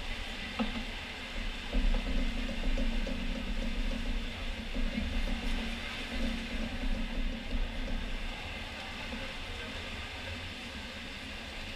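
Echoing indoor pool-hall noise: a steady wash of swimmers' splashing and crowd voices. It swells louder from about two seconds in and eases back after about eight seconds.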